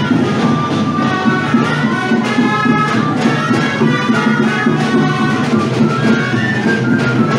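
A street band of gralles (Catalan shawms) and drums playing a tune for the giants' dance, with a steady drum beat under the reed melody.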